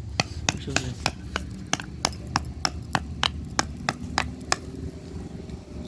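Rapid hammer blows on a flat-head screwdriver, chiselling rocks out of hard ground, about three strikes a second. The blows stop about four and a half seconds in.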